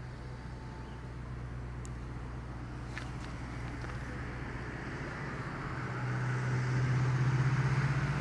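A steady low engine hum with a hiss of tyre-like noise, growing louder over the last couple of seconds, as of a vehicle approaching.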